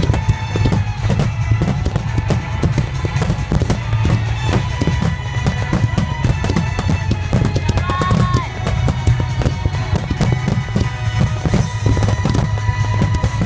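Fireworks finale barrage: many shells bursting in rapid overlapping succession, a continuous heavy booming with crackle on top and a brief whistle about two-thirds of the way through.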